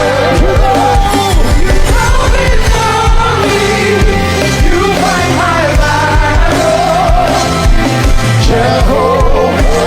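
Live gospel worship music: a band with drums and bass keeping a steady beat under a singing voice.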